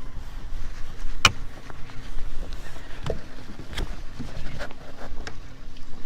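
Steady low rumble of a fishing boat on the water, with a sharp click a little over a second in and several fainter clicks and knocks after.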